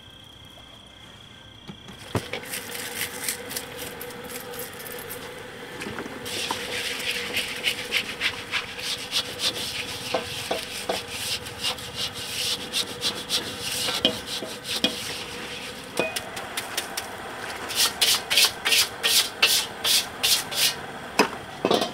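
A metal spatula scraping and stirring food in a pan, beginning about two seconds in, with a fast run of loud scrapes near the end.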